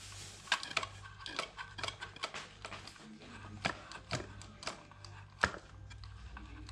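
Irregular light clicks and taps of small hard objects being handled, several a second with one sharper knock about five and a half seconds in, over a steady low hum.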